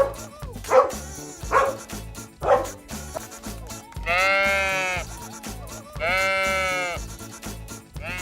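A dog barking four times, about a second apart, then two long bleats, each about a second, over background music.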